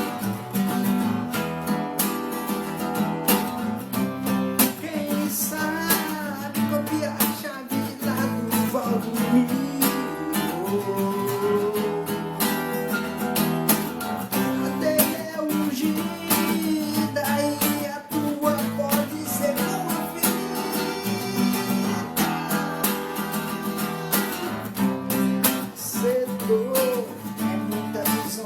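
Acoustic guitar music, quickly picked and strummed, with what may be a singing voice at times.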